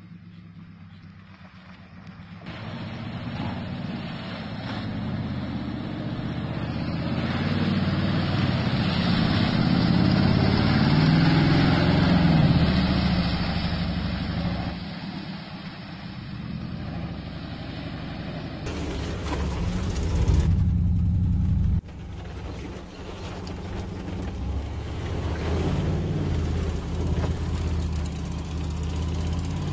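Pickup truck engine revving as it drives through muddy puddles on a dirt road, its tyres throwing up mud and water. The engine swells to its loudest about twelve seconds in, and near the end it is heard from inside a truck cab.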